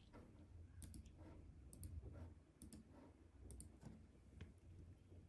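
Near silence with faint, irregular clicks about twice a second: a laptop's keys being pressed as the machine restarts into the BIOS.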